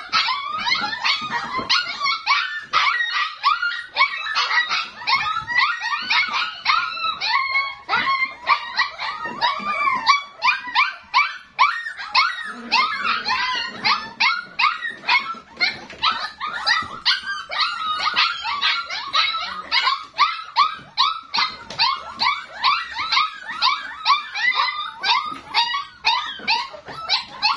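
A litter of young puppies whining and yelping together: a dense, overlapping chorus of short high-pitched cries, several a second, most of them falling in pitch.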